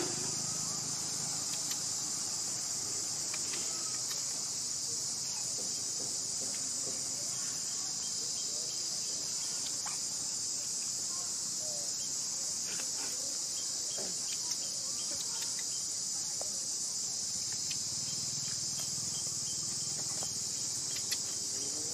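Steady, high-pitched drone of an insect chorus, unbroken throughout, with a few faint ticks.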